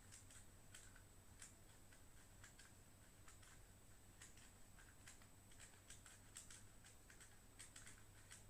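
Faint, irregular light clicks, about two or three a second, from a speed cube being handled and turned, over a steady low hum.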